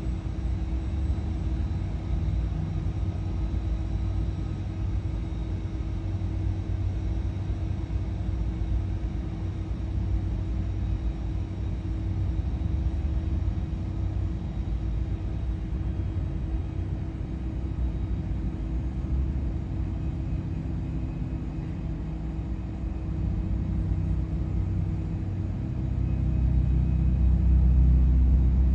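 Twin jet engines of a Lufthansa Airbus A330 at taxi power as the airliner rolls past, a steady low rumble with a constant hum, muffled by glass and swelling louder near the end.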